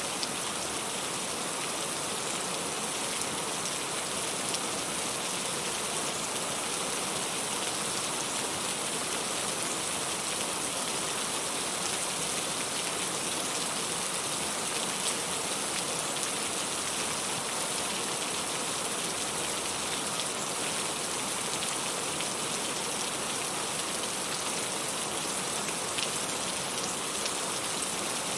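Steady rain falling: an even, unbroken hiss with scattered faint drop ticks.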